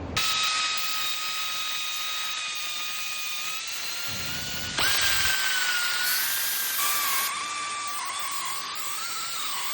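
Cordless power tool running steadily with a whine as it backs out the 17 mm bolts that hold the front wheel bearing hub. The whine rises and grows louder about five seconds in, then drops back in pitch about two seconds later.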